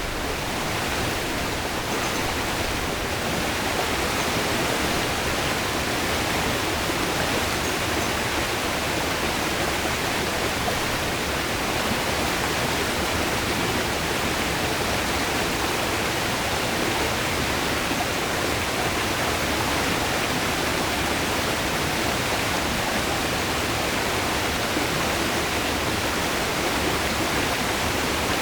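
River water rushing and splashing over rocks, a steady, unbroken roar of moving water.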